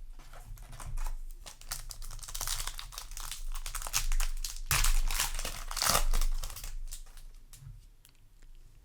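Foil trading-card booster pack wrapper crinkling and being torn open, with the crackle busiest through the middle and dying down near the end.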